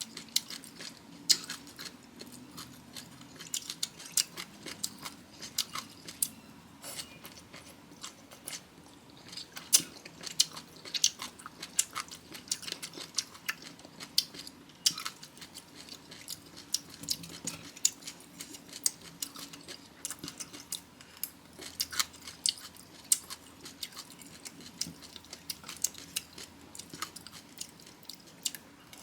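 Close-miked chewing of crunchy bamboo shoot and papaya salad: many quick, irregular crunches and wet mouth clicks.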